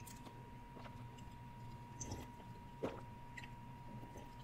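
A person drinking from a glass of iced soda close to the microphone: a few faint gulps and swallows, about two and three seconds in, over a faint steady high hum.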